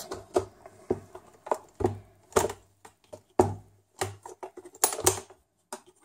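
Handling noise from a Panasonic Toughbook CF-18 laptop's rugged case as it is turned over and shifted about on a work mat: a series of irregular clicks and knocks, some with a dull thud.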